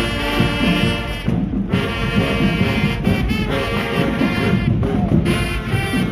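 High school marching band playing: brass sounding sustained chords over a drumline, the brass breaking off briefly about a second and a half in while the drums carry on.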